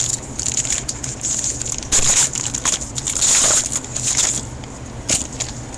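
A foil trading-card pack wrapper crinkling and tearing in the hands, with cards being handled, in irregular rustling bursts over a low steady hum.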